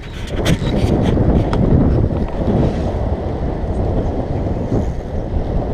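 Wind buffeting the microphone of an action camera on a moving road bike: a loud, steady, low rumble, with a few sharp clicks in the first second and a half.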